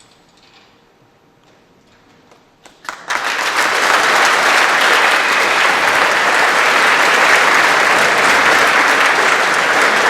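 Large audience applauding. A couple of scattered claps come first, then the full crowd breaks in suddenly about three seconds in and keeps clapping loudly and steadily.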